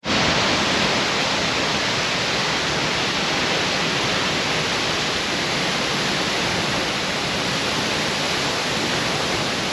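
Waterfall, the steady unbroken rush of falling water.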